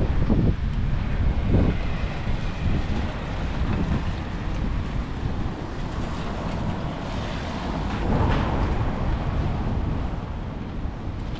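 Wind buffeting the microphone: a steady low rumble that swells and eases as the gusts come and go.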